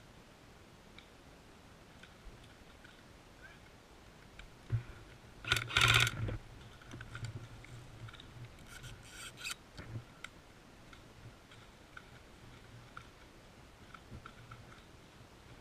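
Airsoft gun firing a short burst of rapid shots about six seconds in, after a single sharp click, with a fainter run of shots a few seconds later and scattered light clicks between them.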